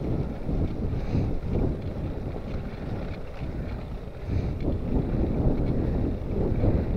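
Wind buffeting the microphone while cycling: a gusting low rumble that grows stronger from about four seconds in.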